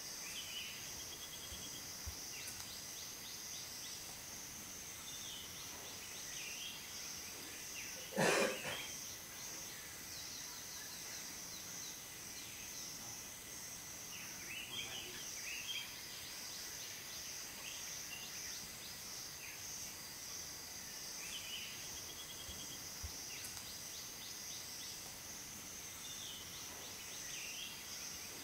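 Natural ambience: insects keep up a steady high-pitched drone, with scattered short bird chirps over it. One brief louder sound stands out about eight seconds in.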